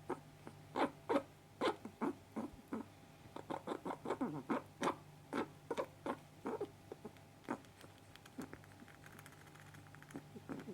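Pet rat sneezing over and over: many short, sharp sneezes at irregular intervals, coming closest together in the middle and thinning out near the end.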